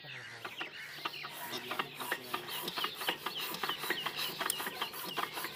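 Single-cylinder stationary diesel pump engine being hand-cranked to start. Its flywheels spin up with mechanical clicking that grows quicker and louder.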